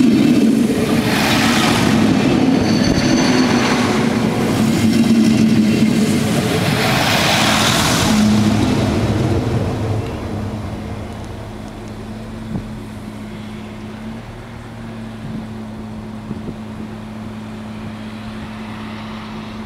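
Alstom Coradia LINT 41 diesel railcar running past close by: wheel and rail noise with engine sound, dying away about ten seconds in. A steady low hum remains after that.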